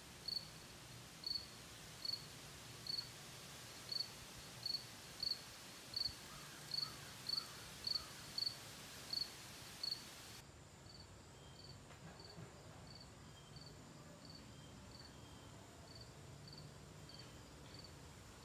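An insect chirping steadily outdoors: short, high chirps at one pitch, repeating about one and a half times a second, becoming fainter about ten seconds in.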